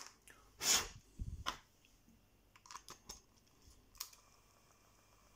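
Clicks and knocks of a portable cassette recorder being handled, its plastic case and buttons worked by hand: a louder knock about a second in, a few light clicks in the middle, and a sharp click about four seconds in, after which a faint steady hum sets in.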